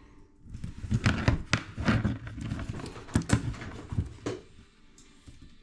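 Irregular small clicks, knocks and rattles of hands working small plastic and metal RC parts: the threaded locking rings on a micro crawler's 65 mm shocks being turned and tightened. The handling stops about a second before the end.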